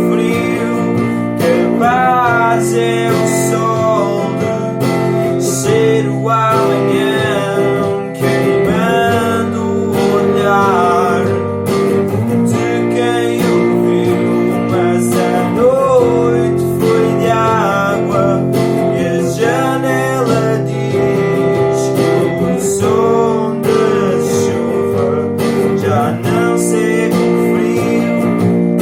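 Acoustic guitar music layered on a loop station: strummed guitar loops with a wavering melodic line on top.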